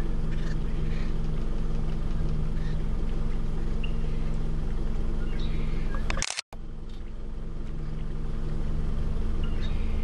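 Steady low engine-like hum with faint scattered bird chirps. About six seconds in, a sharp click and a brief total dropout as the Canon PowerShot SX1 snaps a still photo while recording video; the sound comes back quieter and builds up again over the next couple of seconds.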